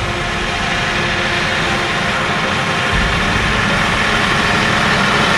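Claas Arion 650 tractor's six-cylinder diesel engine running under load as it pulls a Maschio Gaspardo MTE precision seeder across tilled soil, growing steadily louder as it approaches.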